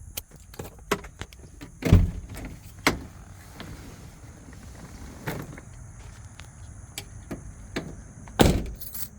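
Scattered knocks and clicks, with two heavy thumps, one about two seconds in and one near the end.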